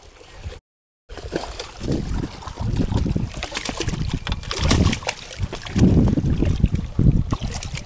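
Hooked largemouth bass thrashing and splashing at the water's surface as it is brought in, with wind buffeting the microphone in irregular surges. The sound drops out completely for about half a second near the start.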